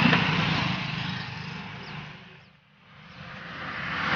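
A vehicle engine running under a steady rushing noise. It fades away to almost nothing about two and a half seconds in, then builds back up.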